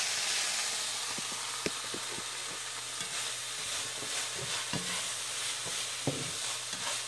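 Ground beef and onion filling sizzling steadily in a frying pan, with a few light clicks and knocks scattered through.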